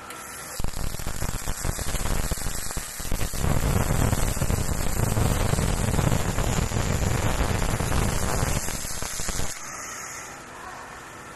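Automatic arc welder welding a transformer radiator's pipe to its tank: the arc crackles and sputters, catching fitfully for the first couple of seconds, then runs steadily before cutting off suddenly near the end.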